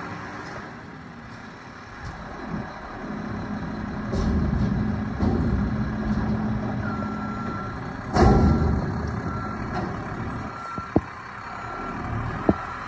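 Front-loader garbage truck's engine and hydraulics running as it handles a dumpster, with one loud bang about eight seconds in. From about seven seconds in its reversing alarm beeps steadily as it backs up.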